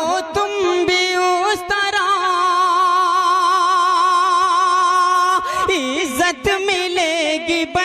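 Unaccompanied naat recitation: a man's voice singing an ornamented melody, holding one long wavering note for about three seconds in the middle before the line moves on.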